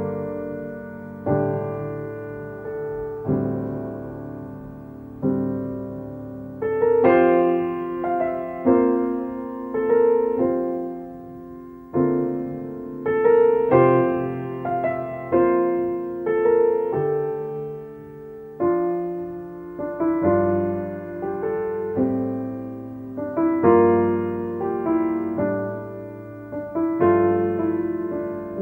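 Slow, gentle solo piano music, notes and chords struck and left to ring and fade.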